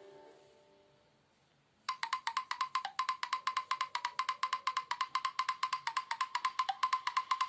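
Nokia Lumia 520 preloaded ringtones: the pitched tail of one tone fades out, and about two seconds in the next ringtone starts, a fast, even run of short clicking notes at one steady pitch.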